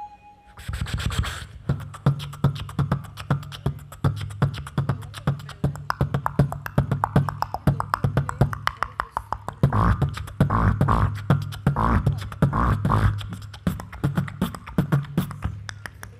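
Solo beatboxing into a cupped microphone over a PA, with rapid kick, snare and hi-hat clicks over a steady low bass tone. It starts about half a second in.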